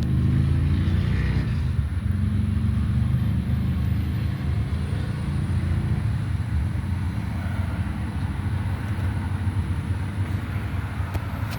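A vehicle engine running steadily at idle: a low, even rumble.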